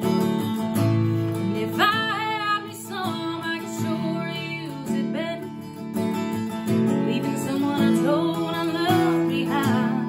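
A woman singing to her own strummed acoustic guitar. The guitar chords carry on throughout, while the voice comes in for two phrases: one about two seconds in, and another in the second half.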